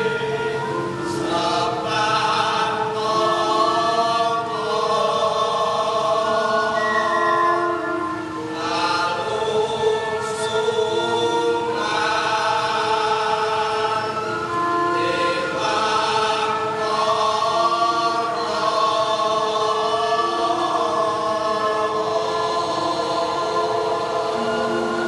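Javanese gamelan singing in bedhayan style: the female sinden and male gerong singers sing together in long held notes, accompanied by the gamelan ensemble.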